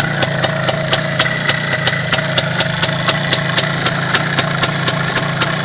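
MZ 150 motorcycle's single-cylinder two-stroke engine idling steadily, with a sharp regular tick about four times a second over the running.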